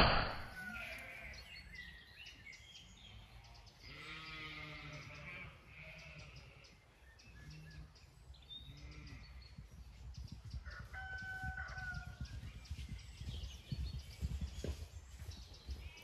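Sheep bleating faintly in the distance a few times, the longest call about four seconds in.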